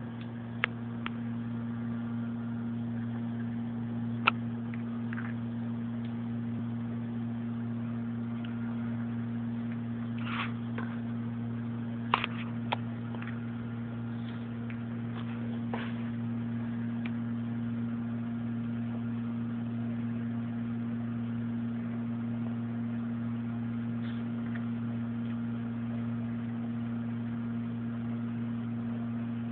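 A steady low electrical hum with a higher overtone, unchanging throughout. A few short, sharp clicks sound in the first half.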